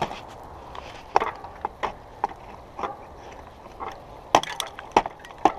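About a dozen sharp, irregular knocks and scrapes as caked mud is cleared from the cleats of clipless cycling shoes so they will clip into the pedals.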